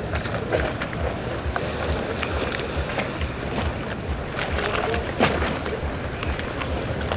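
Wind buffeting the microphone over choppy water, with small waves lapping and slapping against boat hulls in short splashes.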